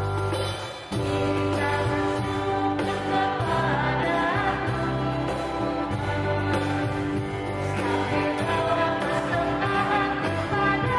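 A small worship band of electric bass, acoustic guitar and keyboard playing a hymn, with a few singers singing the melody together over it. The music dips briefly about a second in, then carries on.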